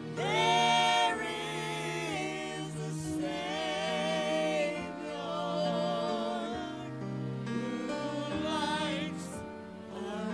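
Music: a Christian song sung by a small group of singers, women's and a man's voices, with vibrato, over instrumental accompaniment with held bass notes.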